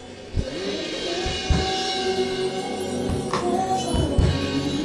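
Live church worship music: a drum kit hitting every second or so under held chords, with some singing.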